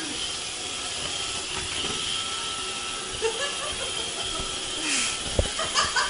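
Vacuum cleaner running steadily: an even hiss with a thin steady whine. A knock about five seconds in and a couple of clicks near the end.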